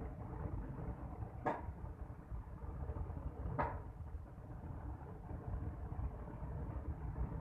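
Two sharp knocks, about a second and a half in and again about two seconds later, over a steady low rumble.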